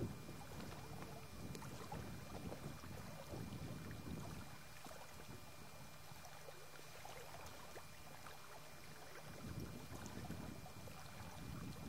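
Faint, uneven low rumble of wind buffeting the microphone. It eases off in the middle and picks up again near the end.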